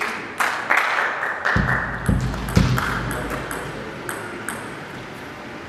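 Celluloid-style table tennis ball clicking against bats and table in a quick, irregular run of sharp pings, with a few low thuds in the middle; the clicks die away after about four and a half seconds.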